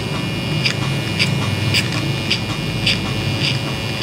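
Electric hair clippers buzzing steadily against the nape while tapering a fade, with a short crisp sound repeating about twice a second as the blade is worked up through the hair.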